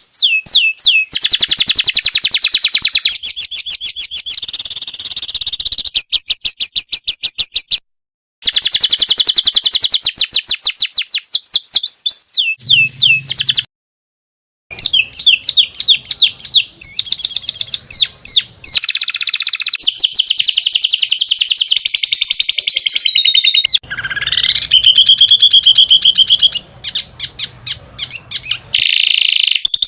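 Masteran bird-song training track: recorded songbird songs spliced one after another, rapid high chirps and trills repeated many times a second. The song changes every few seconds with abrupt cuts, and there are two brief silences about 8 and 14 seconds in.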